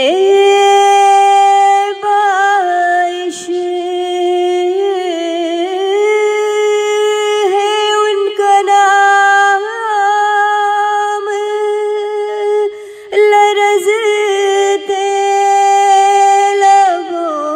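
A woman's voice singing a naat, holding long notes with small ornamented turns in pitch and no clear words, pausing briefly about two and thirteen seconds in.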